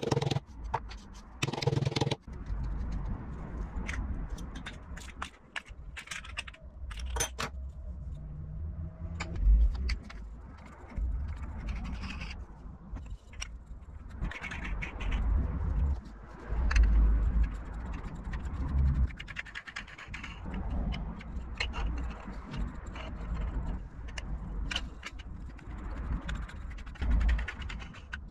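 A claw hammer tapping a T-nut into a wooden block, several sharp strikes in the first two seconds, then wooden spacer blocks and MDF discs being handled, knocked and slid on a wooden workbench, with irregular dull thumps and scraping.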